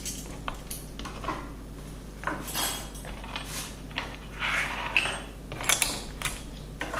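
Small tools and objects being picked up and set down on a tray: scattered clinks, clicks and short rustles.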